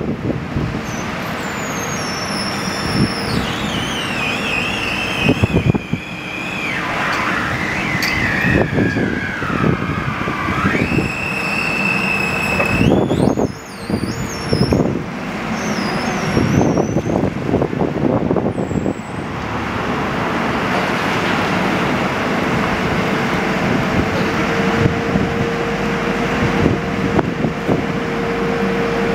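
JLG 1255 telehandler running while its hydraulics work the stabilizers and telescope the boom out. A whine slides down in pitch over the first dozen seconds amid clunks and knocks, and a steady hum settles in over the second half.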